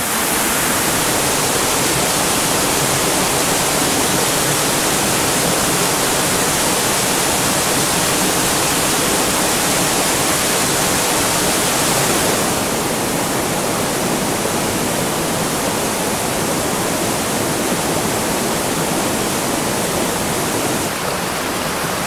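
Small mountain-creek waterfall and cascades rushing steadily; from about halfway through the rush is a little softer and less hissy.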